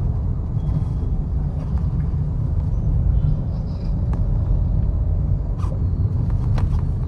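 Steady low rumble of a car on the move: road and engine noise, with a few faint clicks near the end.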